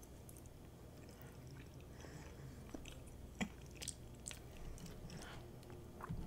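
Faint close-miked chewing of a mouthful of chili cheese fries with jalapeños: soft wet mouth smacks and clicks, with a few sharper clicks a little over three seconds in.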